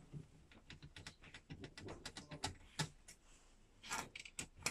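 Irregular light clicks and taps from a small screwdriver and the metal and plastic parts of a Mercedes-Benz W213 wide-cockpit display as it is dismantled, with a louder run of clicks about four seconds in.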